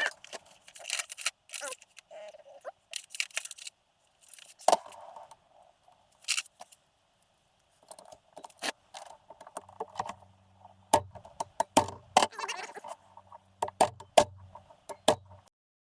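Irregular metallic clinks, clicks and rattles of hand tools and metal engine parts being handled during an engine teardown.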